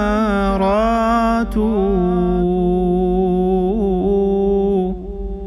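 A man's voice singing a line of Arabic poetry without instruments. The last word is drawn out into a long ornamented held note that fades out near the end, over a steady low hum.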